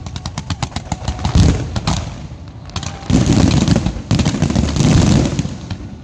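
Aerial fireworks going off: a quick run of sharp cracks in the first second, then repeated deep booms with dense crackling, heaviest from about three to five and a half seconds in.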